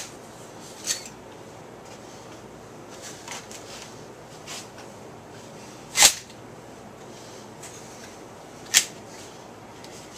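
Handling clatter of shotgun parts: a few short, sharp clicks and knocks, the loudest about six seconds in and another sharp one near nine seconds, with softer taps in between.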